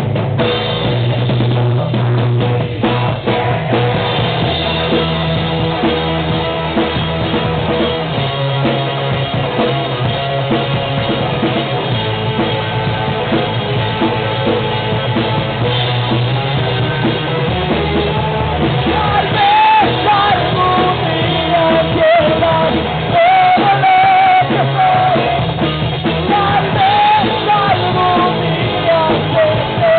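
Live rock band playing with drum kit, bass and guitars. From about 18 seconds in, a wavering melody line rises above the band.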